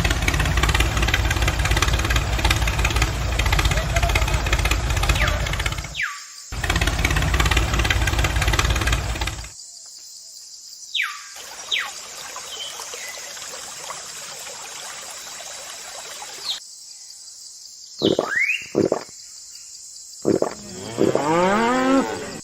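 A small motor running loudly, stopping briefly about six seconds in and cutting off about nine and a half seconds in. Near the end come a few short pitched calls that rise and fall.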